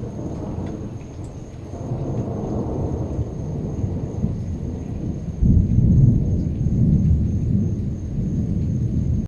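Thunder rumbling low and building, with a sudden louder crack-and-roll about five and a half seconds in that keeps rumbling to the end, over a hiss of rain.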